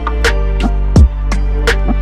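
Outro music with a beat: a deep kick drum about once a second over a held bass note, with lighter percussive hits in between.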